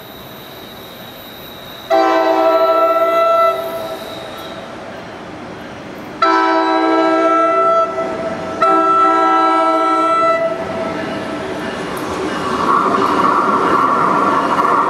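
Multi-chime air horn of an approaching NJ Transit passenger train sounding three blasts, the last two close together. In the final seconds the train's running noise builds as it nears.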